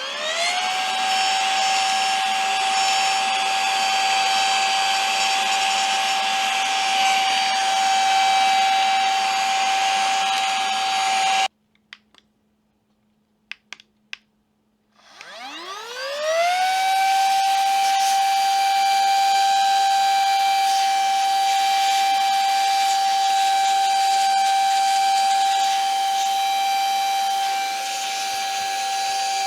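Silvercrest SHM A1 mini cordless handheld vacuum's small motor spinning up to a steady high-pitched whine with airflow hiss. It switches off suddenly after about eleven seconds, followed by a few small clicks, then spins up again and runs steadily.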